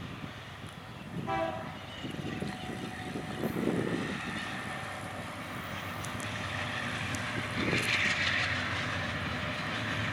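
Diesel freight locomotive running with its train, a steady low rumble of engine and wheels. A brief pitched tone sounds about a second in.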